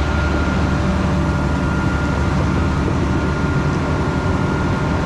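Combine harvester running steadily: a constant engine rumble with a thin, steady high whine over it.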